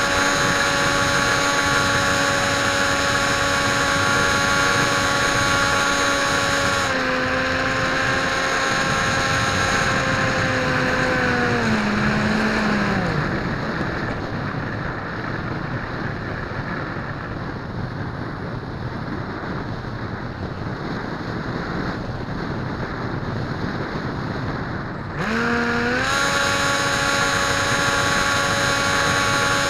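Dynam Hawk Sky RC plane's electric motor and propeller whining steadily at high throttle. About seven seconds in it is throttled back in steps, and around thirteen seconds in it cuts off, leaving wind noise as the plane glides. About twenty-five seconds in the throttle is opened again and the whine rises quickly back to a steady pitch.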